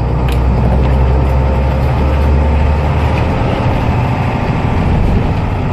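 Blue Bird school bus's International DT360 diesel engine running under way, a deep steady rumble with the Allison AT545 automatic transmission in gear. The lowest part of the rumble eases about three seconds in.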